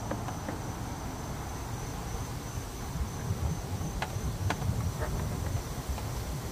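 Hard plastic air filter box lid being handled and lined up over a new panel air filter: a few light plastic clicks and knocks, most of them around four to five seconds in, over a low rumble and a steady high-pitched whine.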